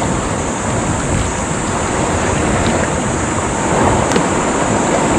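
Steady rushing noise of wind and waves, with a few faint clicks.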